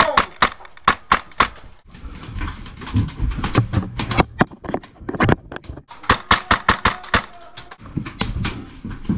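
Airsoft rifles firing, each shot a sharp crack: a fast run of shots at the start, scattered single shots in the middle, and a second fast run of about six shots a second a little past halfway.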